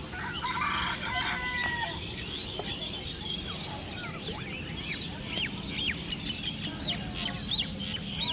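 A rooster crows once near the start, a held call lasting about a second and a half, while small birds chirp in short, repeated notes throughout.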